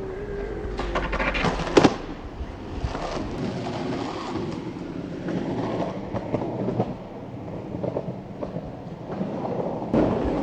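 Skateboard wheels rolling over concrete, a steady rumble with clacks as the wheels cross seams. Sharp board impacts stand out about two seconds in and again near the end, the sound of the board hitting the concrete on tricks or landings.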